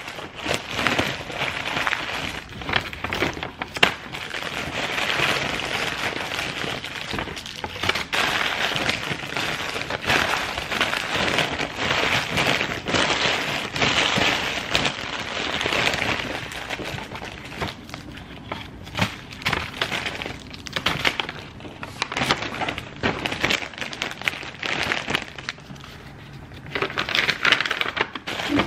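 Plastic candy bag crinkling and paper goodie bags rustling as wrapped candies are handled and dropped in: a dense run of small crackles and clicks, easing off for a while in the second half before picking up again near the end.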